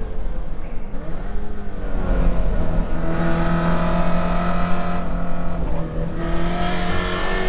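Holden VK Commodore's 308 V8 running hard on track, heard from inside the cabin. The engine note changes pitch in the first couple of seconds, pulls steadily through the middle, and eases off briefly about five seconds in before picking up again.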